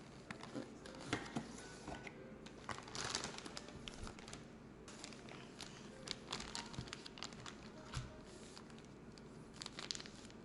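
Plastic packaging crinkling and rustling in uneven handfuls, with scattered sharp clicks and taps, as computer parts are unpacked.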